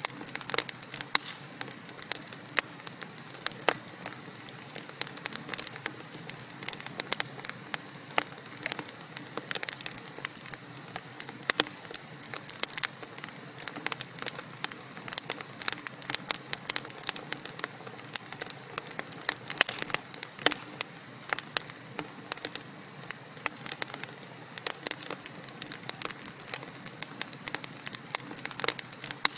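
Wood fire burning in a fireplace: logs crackling with many sharp, irregular pops and snaps over a steady low hiss.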